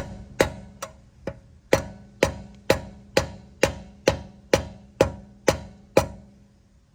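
A lug wrench being banged onto a lug nut, about thirteen sharp metal strikes with a short ring, roughly two a second, stopping about six seconds in. The nut's thin decorative cap is deformed, so the wrench will not slip on without being driven.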